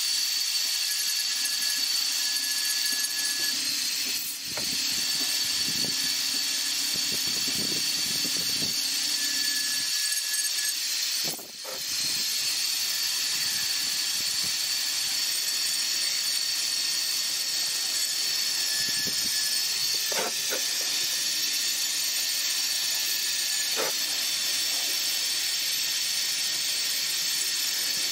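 Small handheld electric rotary tool running at high speed with a fine carving bit, a steady high whine and hiss as it grinds into wood. It briefly dips about eleven seconds in.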